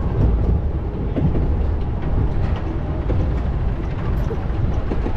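Suspended roller coaster train running high on its steel track, heard on board as a heavy, steady low rumble.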